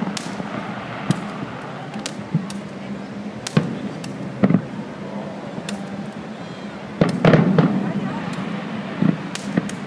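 Fireworks going off in irregular sharp bangs, with a cluster of louder bursts about seven seconds in.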